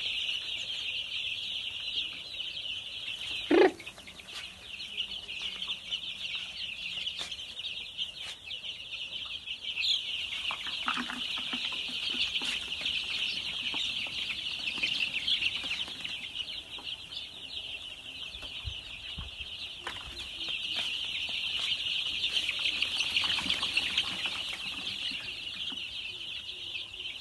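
Dense, steady chorus of many young chicks peeping, with a few scattered lower calls. One loud short call slides down in pitch about three and a half seconds in.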